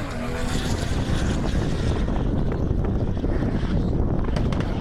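Drift car's engine running hard at a distance during a drift run, a dense low rumble, with wind buffeting the microphone.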